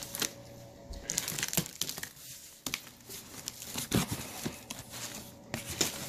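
Cardboard shipping box being pulled open by hand: flaps scraping and packing material crinkling and rustling unevenly, with a few sharper knocks, the loudest about four seconds in.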